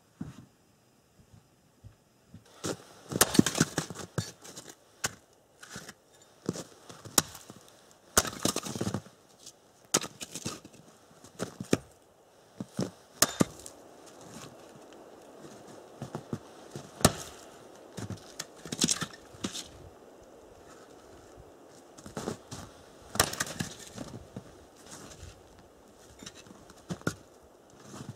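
Firewood being split with an axe on a chopping block: repeated sharp wooden strikes and knocks in irregular bursts, starting a couple of seconds in.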